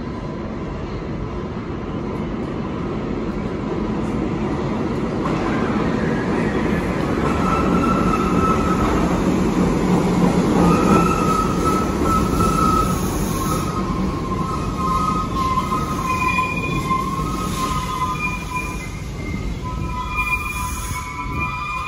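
R68 subway train pulling into a station: the rumble of its wheels on the rails builds to a peak about halfway through and then eases as it slows along the platform. From about a third of the way in, high squeals come and go from the wheels and brakes.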